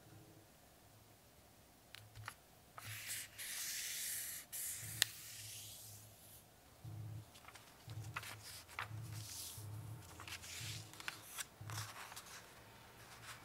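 Square of origami paper handled and folded by hand: the sheet rustles and slides on the tabletop in several bursts, fingers rubbing it flat along a crease, with a few sharp paper clicks, the loudest about five seconds in.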